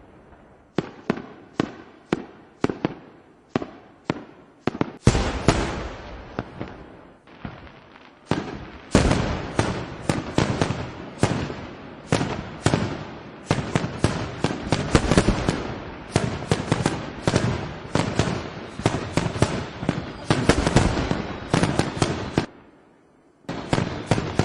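Fireworks going off. First comes a series of single bangs about two a second; then, from about five seconds in, a dense barrage of rapid overlapping bangs. The barrage drops away briefly near the end before a last cluster of bangs.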